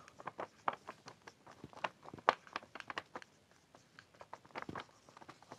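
Marker pen writing on a whiteboard: a faint, irregular run of short scratching strokes and taps as the words are written.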